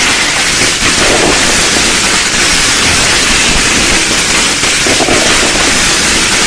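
Fireworks and firecrackers going off in a dense, unbroken crackle, so many reports overlapping that they merge into one continuous loud sound, swelling slightly about a second in and again about five seconds in.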